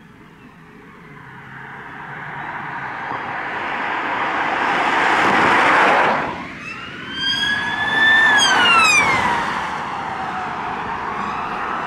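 Marked police car responding on blue lights: its tyre and engine noise swells as it approaches fast and passes about six seconds in, then its siren sounds one wail that rises, holds and falls away as the car drives off.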